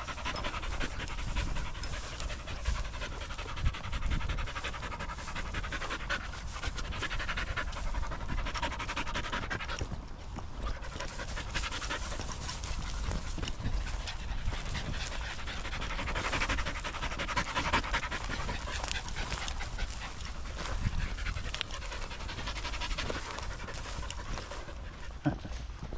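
A dog panting fast and steadily close to the microphone, with quick, even breaths.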